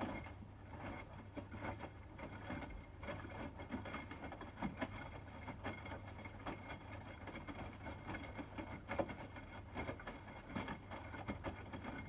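Hotpoint WMFUG 942 front-loading washing machine tumbling its drum during the heating stage of a 60° wash: water sloshing and wet laundry splashing irregularly as it lifts and drops, over a steady low hum.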